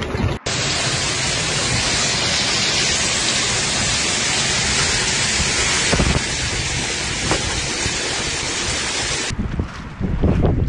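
Heavy hailstorm: a dense, steady hiss of hail and rain pelting down, cutting abruptly near the end to a rougher, lower rush.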